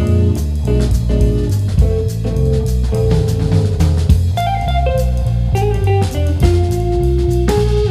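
Instrumental music with guitar, a stepping bass line and a drum kit keeping a steady beat.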